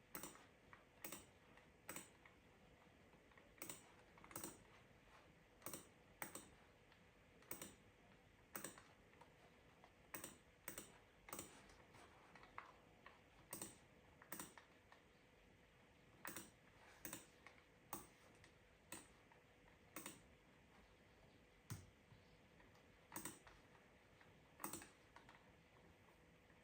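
Computer keyboard keys pressed slowly, one at a time: separate sharp clicks at an uneven pace of about one a second, over a faint steady hum.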